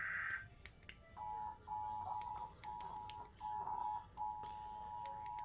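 The tail of an Emergency Alert System SAME header burst, a harsh high data buzz, cuts off about half a second in. About a second later the EAS two-tone attention signal (853 and 960 Hz together) starts, cutting out briefly several times before holding steady.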